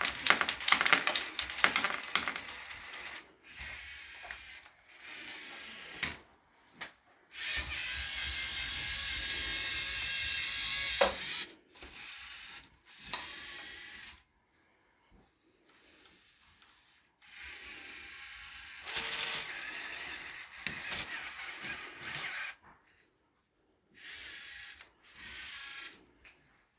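LEGO competition robot's electric motors and plastic gear trains running in stop-start bursts as it drives and works its attachments, with a rapid run of clicking at the start.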